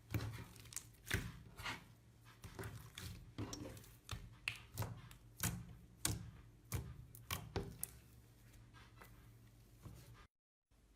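Slime being handled close to the microphone, giving a quick, irregular run of crackling clicks and pops. A short silent break comes near the end.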